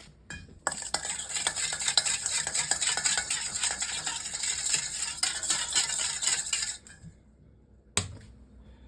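Padron peppers sizzling in oil in a pan while being stirred, with quick clicks and scrapes of the utensil against the pan. The sizzling starts under a second in and stops suddenly near seven seconds, followed by a single knock about a second later.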